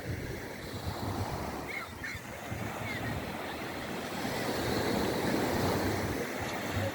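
Sea waves breaking on the shore, a wash of surf that swells to its loudest about four to six seconds in, with wind buffeting the microphone.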